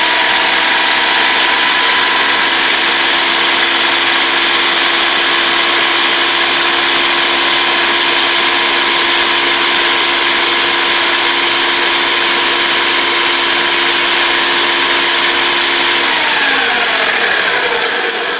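Ninja blender motor running at speed, churning a liquid pumpkin custard mix with a loud, steady whine and whoosh. About sixteen seconds in its pitch falls as the motor winds down.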